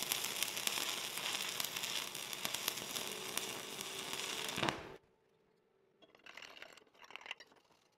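Stick-welding arc from a 7018 electrode at about 105 amps: a steady crackling sizzle full of small pops, which stops abruptly about four and a half seconds in as the arc is broken. A few faint clicks follow.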